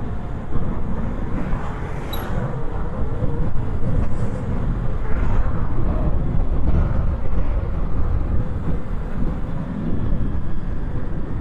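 Wind buffeting an external clip-on microphone, a loud low rumble that rises and falls.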